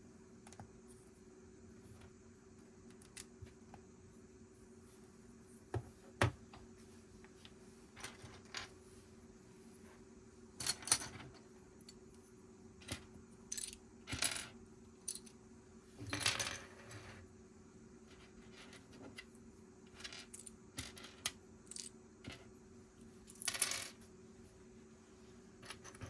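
Small plastic Lego pieces clicking and clattering as they are handled and pressed together: irregular single clicks with several short rattles, the loudest about 11, 16 and 23 seconds in.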